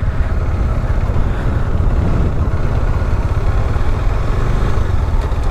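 Bajaj Dominar motorcycle with a single-cylinder engine riding along at a steady pace, a constant low rumble under wind blowing on the microphone.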